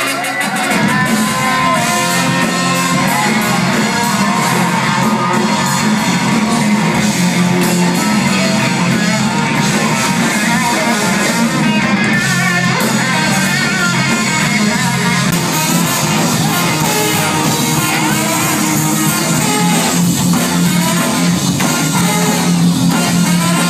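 Live band playing loud and steadily, with trombone, saxophones and electric guitar.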